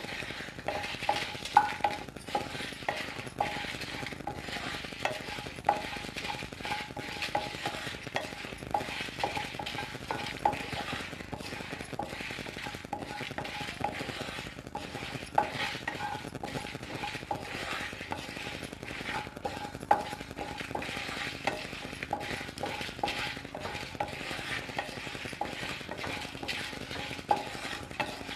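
Wooden spatula stirring whole coriander seeds and dried red chillies as they roast in a hot non-stick kadai: a steady scraping rustle of seeds across the pan, broken by frequent irregular light knocks of the spatula on the pan that ring briefly.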